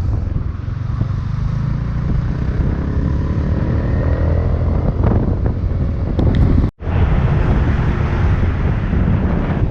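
Motorbike engine running while riding, with wind buffeting the microphone. The sound drops out for an instant about two-thirds of the way through.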